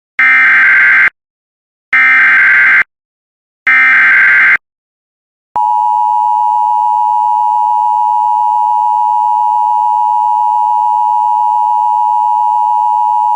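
Emergency Alert System activation: three short bursts of screeching digital SAME header data, about two seconds apart, then after a brief pause the long steady attention tone, about eight seconds, cutting off abruptly.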